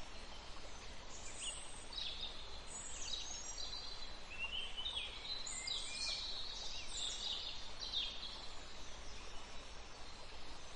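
Birds chirping: clusters of short, falling high-pitched calls, thickest in the middle, over faint steady room noise.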